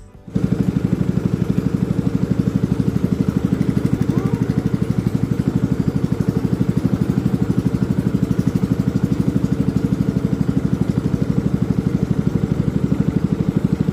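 Small engine running steadily at constant speed with a rapid, even putter, cutting in abruptly just after the start.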